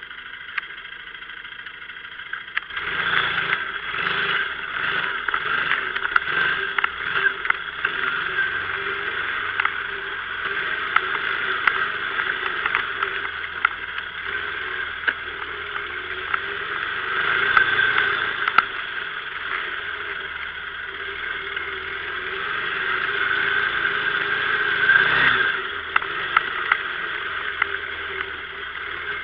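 Kymco MXU 500 quad's single-cylinder engine running while being ridden off-road. It gets louder about three seconds in and swells louder twice more as it is throttled up. Frequent short clicks and knocks run throughout.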